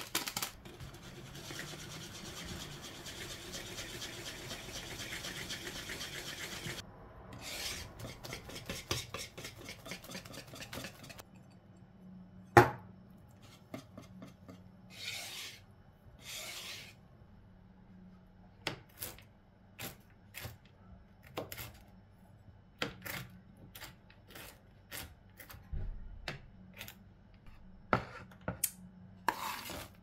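Wire whisk mixing flour and cake batter in a wooden bowl: a steady scraping rub for the first several seconds, then a run of quick strokes. After that come scattered taps and knocks against the bowl, with one sharp knock a little before the middle.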